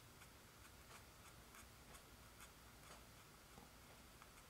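Near silence with faint, irregular soft ticks, a few a second, from a fine paintbrush dabbing paint onto canvas.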